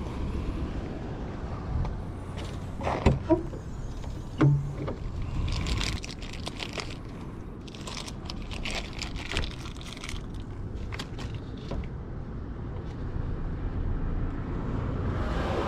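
A car's hood latch clacks sharply a few times, with a short metallic ring, as the hood is released and raised. Then comes a few seconds of crinkling from a plastic bag as small parts are unwrapped, over a low steady outdoor rumble.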